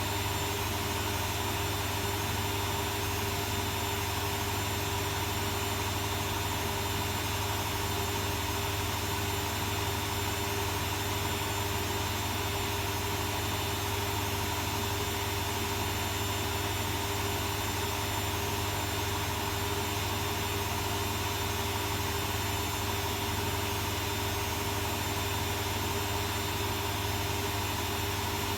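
Arçelik 3650 SJ front-loading washing machine running with a quilt inside: a steady, unchanging motor hum with a few constant higher tones.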